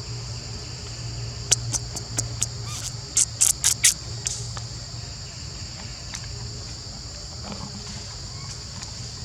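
Steady high-pitched insect chorus, with a quick run of sharp clicks about a second and a half in, ending in four louder clicks near the middle.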